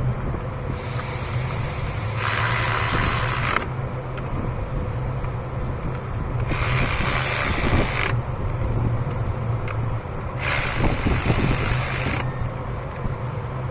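Ratchet wrench clicking in three bursts of about a second and a half each, tightening down the ignition coil bolts, over a steady low hum.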